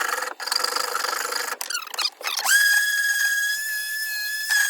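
A rasp or file scraping on a wooden axe handle, shaving wood so the head will fit. About halfway in, a steady high-pitched whine starts and holds an even pitch; it is the loudest sound here.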